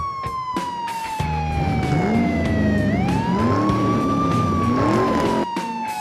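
Police siren wailing: a long, slow fall in pitch, a quick rise about halfway through, then another slow fall. It plays over background music with a steady beat.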